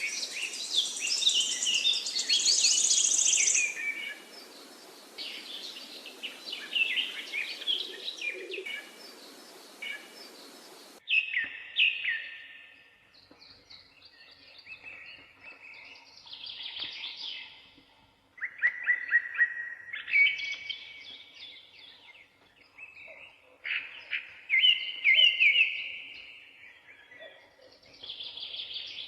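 Small birds chirping and singing, many short calls and trills overlapping. A steady hiss underneath cuts off suddenly about eleven seconds in, leaving the birdsong over a quieter background.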